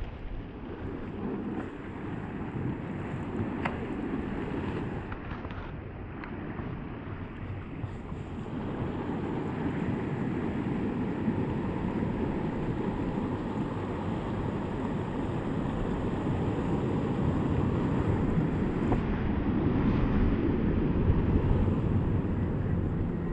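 Wind buffeting the microphone over the rush of ocean surf, a steady low rumbling noise that grows somewhat louder toward the end.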